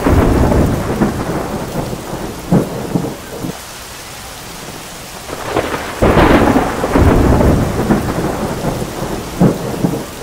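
Heavy rain pouring down, heard from under a corrugated-roofed shelter, with a loud low rumble at the start and another about six seconds in, and a few sharp knocks of drops or drips.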